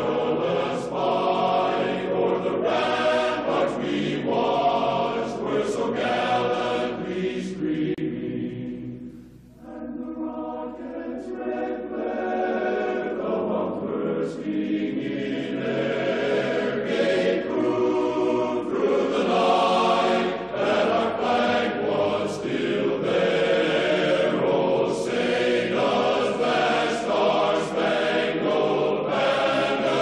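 Choral music: a choir singing slow, held chords, fading briefly about nine seconds in before swelling back.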